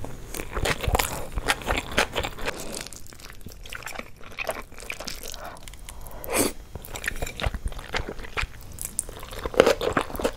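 Close-miked eating: a person chewing mouthfuls of fried rice and noodles, with many quick, irregular wet mouth clicks.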